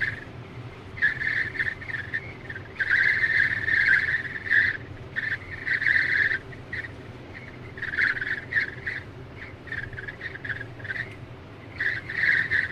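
Wind whistling at the passenger window of a Tesla Model X at highway speed, heard inside the cabin: a high whistle that swells and fades every second or so over a low, steady road rumble. The whistle is a wind-noise fault at the passenger window that needed a service visit.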